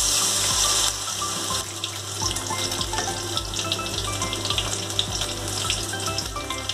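Sliced spring onion bulbs frying in hot oil in a wok: a loud burst of hiss as they hit the oil, easing after about a second into steady sizzling with small crackles and pops.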